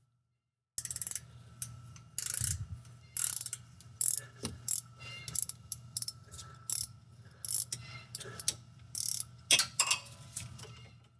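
Ratcheting wrench clicking in short repeated bursts as an exhaust manifold bolt is turned, after a moment of dead silence at the start.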